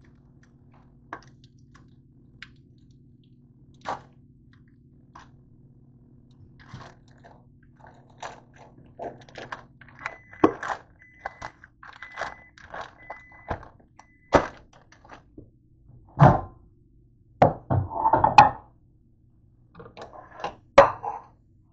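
A microwave oven hums steadily and shuts off about ten seconds in, then beeps several times as it finishes. After that come loud knocks and clatter of dishes and a pan being handled and set down on the countertop.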